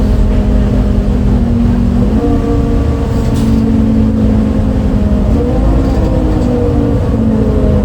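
Interior sound of a MAN Lion's City A37 articulated bus with its MAN D0836 LOH 63 diesel running under way: a steady low drone with a humming engine note that steps up in pitch about two seconds in and rises again around five seconds in. The engine has an unusual sound, which the uploader had never heard from a MAN before.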